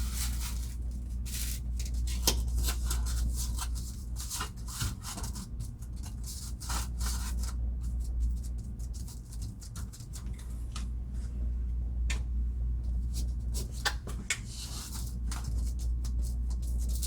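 Polystyrene ceiling tile being handled and pressed into place, giving irregular scratchy rubbing and scuffing of foam against surfaces, over a steady low hum.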